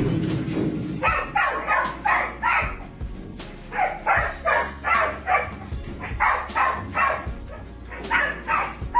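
A dog barking repeatedly in quick runs of three to five barks, about three a second, with short pauses between the runs.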